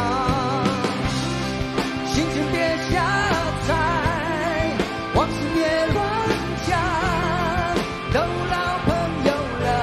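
Live rock band performance: a male lead voice sings a Mandarin ballad-rock song, holding notes with a wide vibrato, over acoustic and electric guitars, drums and keyboards.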